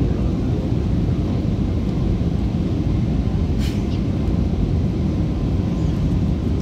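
Steady low rumble of cabin noise inside an Airbus A320 airliner descending on approach to land.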